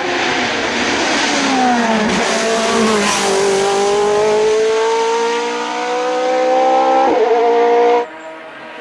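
Hill-climb race car engine at full throttle passing by, its note falling as it goes past, then revving up steadily through a gear as it pulls away. A quick gear change comes about seven seconds in, and the sound drops away abruptly near the end.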